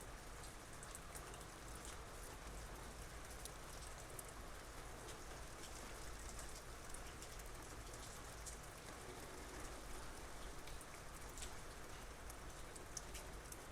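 Soft rain falling steadily, a constant hiss with many light drop ticks scattered throughout.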